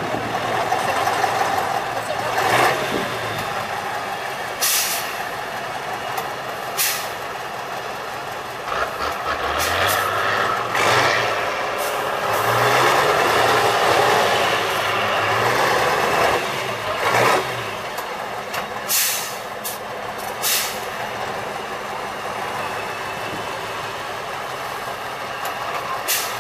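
Tatra 813 8x8 truck's diesel engine working under load as the truck crawls slowly, revving harder midway. Several short, sharp hisses of compressed air from the air brakes.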